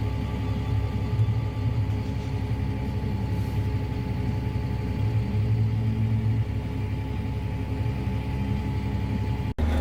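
Heavy diesel farm machinery engine running steadily at a constant pitch, from a tractor or forage harvester working corn silage. The sound cuts out abruptly for an instant near the end.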